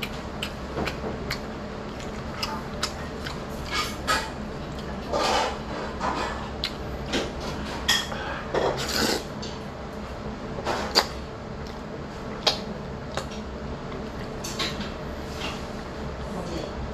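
Eating sounds: chopsticks clicking against the bowl and plate, with chewing and a few slurps of jjajangmyeon noodles.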